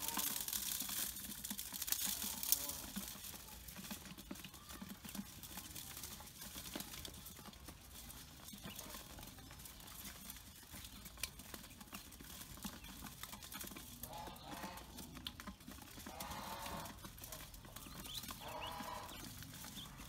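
Ducklings pecking at grain in a steel bowl: fine scratchy clicking and rustling, busiest in the first few seconds. Several drawn-out animal calls come near the end, with short high peeps among them.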